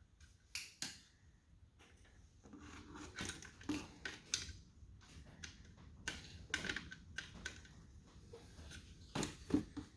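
Irregular clicks, knocks and scraping of a car's door handle assembly being worked and slid out of the door, plastic and metal parts rubbing and knocking against the door shell. The sharpest knocks come in small clusters, the loudest near the end.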